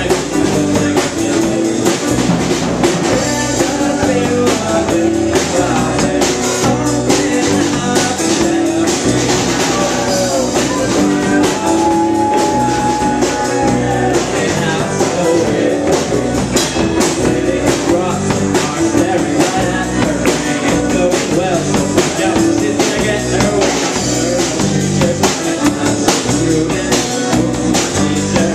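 Live rock band playing loud and without a break: drum kit with cymbals driving a steady beat, under electric guitar and vocals, picked up by a pocket camcorder's microphone.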